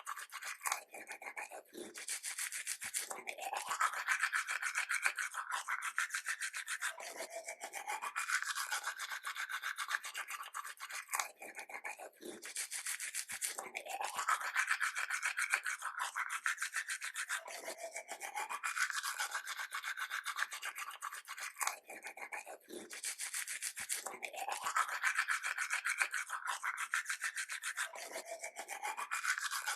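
Toothbrush scrubbing teeth in fast back-and-forth strokes, the tone of the scrubbing sliding up and down. Brief breaks come about every ten seconds, and the same stretch of brushing repeats each time.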